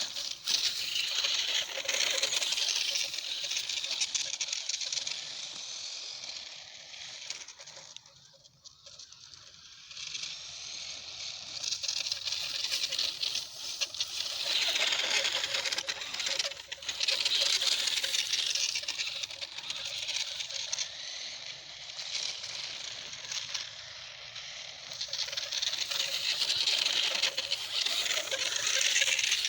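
Hosim RC car driving over rough ground, a gritty rattling of tyres and chassis that swells and fades as the car comes nearer and goes farther away.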